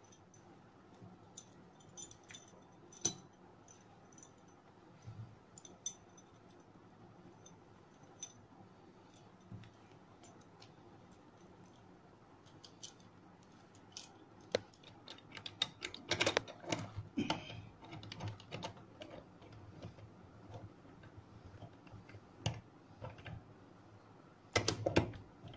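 Small metal parts clicking and clinking as they are handled and fitted together, in irregular taps with a few short metallic pings. The handling gets busier about two-thirds of the way through, and there is a loud clatter near the end.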